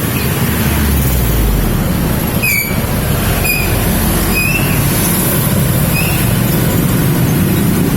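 A young sunbird, still in mottled juvenile plumage and learning its song, gives four short, high chirps spaced about a second apart over a steady, loud background rumble.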